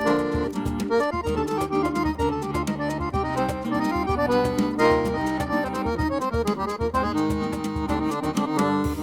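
Accordion playing a lively instrumental tune of quick, dense melody notes over a steady rhythmic accompaniment.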